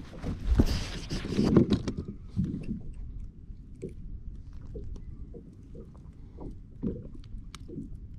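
Wind rumbling on the microphone and small waves slapping against a plastic fishing kayak's hull, with a louder rush of noise in the first two seconds. After that come scattered soft knocks and a few light clicks as hands rig a dead herring on a hook and line.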